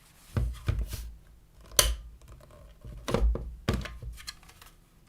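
Hard plastic parts of a Parkside PHSSA 20-Li A1 handheld vacuum cleaner being handled: a series of short clicks and knocks, the sharpest a little under two seconds in.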